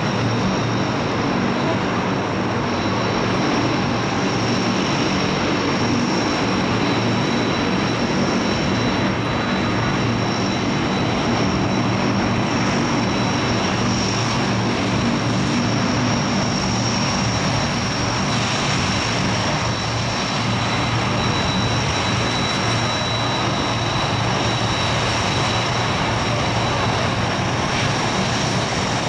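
Aircraft engine running at a steady pitch and level: a high whine over a low rumble.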